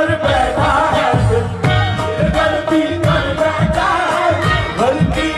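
Loud Indian-style music with singing over a steady drum beat, cut in abruptly.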